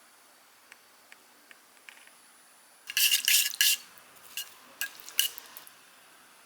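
Eating utensils clinking against a bowl of udon. A few faint taps come first, then a quick cluster of louder clinks about three seconds in, then three separate sharp clicks.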